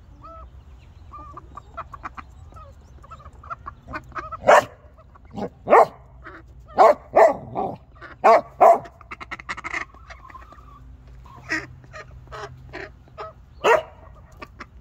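Dog barking: a run of loud, sharp barks in the middle and one more near the end, with softer short bird calls between them.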